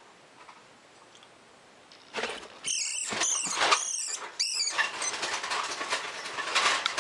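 A young rat (a fuzzy) squealing in a quick series of four or five high shrieks, each rising and falling in pitch, starting about two seconds in as a Dumeril's boa seizes and coils around it. Then comes the scrabbling and rustling of the struggle against the plastic feeding tub.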